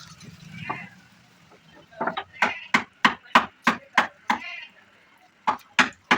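A tool striking wood again and again, about three blows a second, in two runs with a short pause between, as in hammering or chiselling during woodworking.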